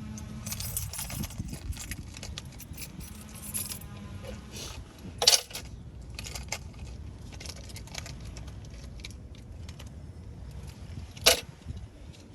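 Metal hand tools clinking and rattling as someone rummages for a socket attachment, with two sharp metal clanks, one about five seconds in and one near the end.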